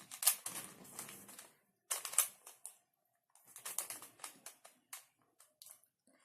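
Rubik's cube being turned by hand: the plastic layers click and clatter in three bursts of quick turns with short pauses between, then a few single clicks near the end. This is the sequence F R U R' U' F' being worked through to form the cross on the last layer.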